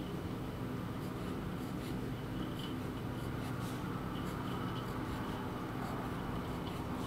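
Pen scratching and ticking on paper in short, irregular strokes while inking small shapes, over a steady low room hum.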